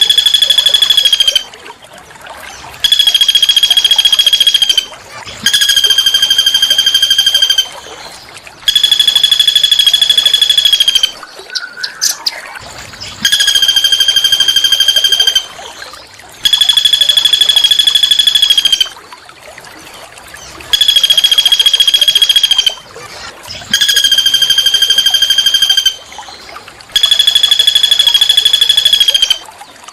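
A small songbird repeating a long, level, rough-toned trill, each about two seconds long with a short gap between, nine times over.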